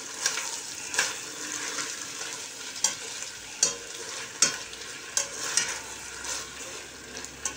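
White beans in pepper paste and oil being sautéed and stirred in a stainless steel pot: a steady frying sizzle, with a metal spoon scraping and knocking against the pot at irregular moments every second or so.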